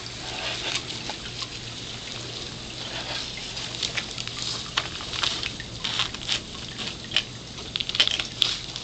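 Black-throated monitor lizard crawling over dry leaf litter, twigs and pebbles, its feet and claws making scattered crackles and scrapes that come more often near the end.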